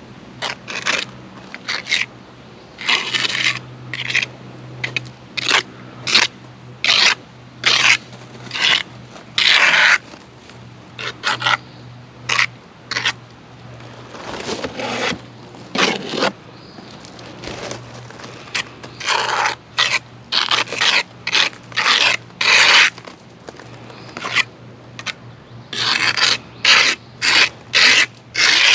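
A trowel scraping and smoothing sticky Ardex X 77 mortar along the top edge of stone veneer panels, in many short, irregular strokes. The mortar seals the joint between the concrete block and the back of the veneer.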